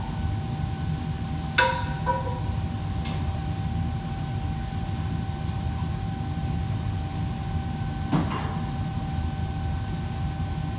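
Metal cookware clanking in a kitchen: a sharp ringing clank about a second and a half in, a smaller one just after, and another knock near the end. Underneath is a steady low drone with a constant thin whine.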